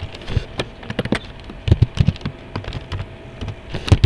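Typing on a computer keyboard: irregular, quick key clicks.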